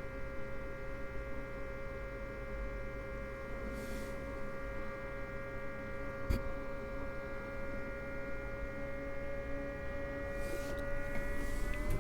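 EcoFlow portable power station running under test, giving off a steady electrical hum and whine that rises slightly in pitch near the end. A single brief click about six seconds in.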